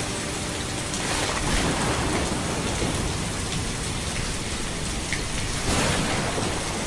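Steady heavy rain falling and pattering on surfaces. It swells louder about a second in and again near the end.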